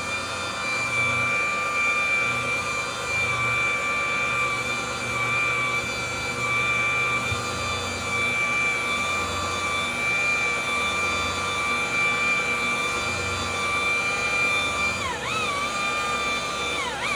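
Electric car-paint polisher running with a steady high whine as it buffs the paint. Near the end its pitch dips briefly twice as the pad bears down on the paint and the motor slows.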